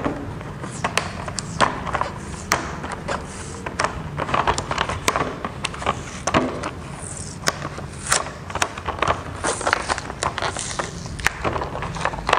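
Stiff plastic blister packaging and its card backing being pried and pulled apart by hand, with irregular crackles and sharp clicks throughout.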